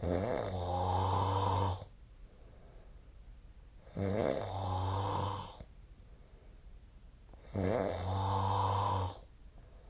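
A sleeping person snoring: three long snores, each about a second and a half, coming roughly every four seconds.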